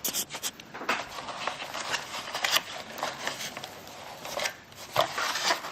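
Packaging of a model aircraft set being handled: a cardboard box and plastic trays rubbing and rustling, with many small clicks and scrapes.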